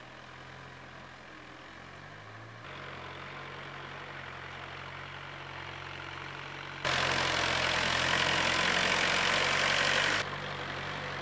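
Tractor engine running steadily at low revs. About seven seconds in, a much louder, noisier stretch covers it for about three seconds, then the engine carries on alone.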